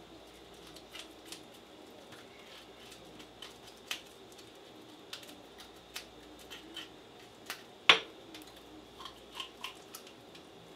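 Knife scraping scales off a whole porgy at a steel sink: a run of short, scattered scratchy clicks, with one much louder click about eight seconds in.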